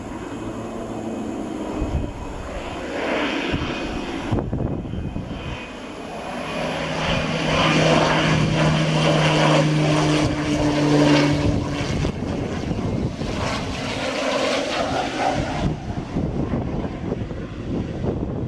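Air Tractor AT-802A single-engine turboprop flying low overhead on its landing approach. Its steady propeller hum grows louder, is loudest a little past the middle as it passes closest, then fades.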